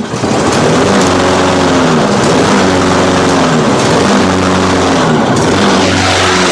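Small Stihl power-equipment engine running on a cold start in deep cold, revved up and down about once a second.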